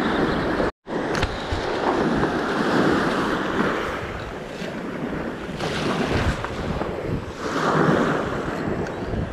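Shallow surf washing and breaking around the wader, with wind buffeting the microphone; the rush swells and eases with each wave. The sound cuts out completely for an instant near the start.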